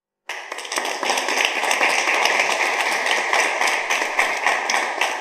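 Applause: many hands clapping in a dense, even patter, starting just after the beginning and dying away at the end.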